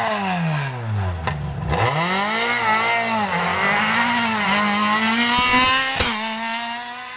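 Renault Clio rally car's engine: the revs fall as it brakes into a hairpin, then rise in several pulls as it powers out and accelerates away. There is a single sharp crack about six seconds in.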